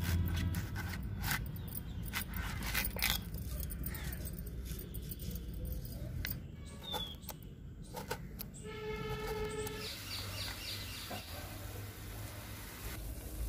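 A curved sickle-like blade (dānti) cutting and peeling a hard white ash gourd: a run of sharp crunchy clicks and scrapes. A brief pitched call comes about nine seconds in, and near the end there is a soft steady hiss of granulated sugar pouring into a steel pot.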